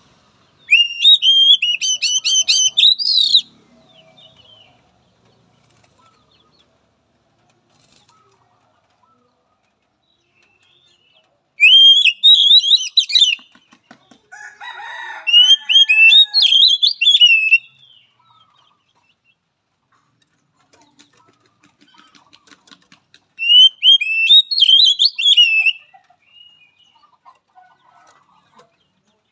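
Oriental magpie-robin (kacer) singing in four loud bursts of rapid, whistled, sharply gliding notes, each burst two to three seconds long, with pauses between them.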